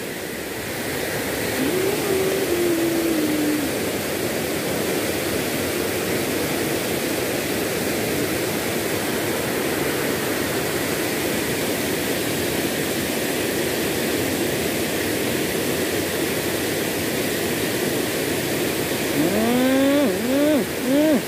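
Steady rush of a rain-swollen river pouring over rocks and a small cascade, a constant wash of water noise.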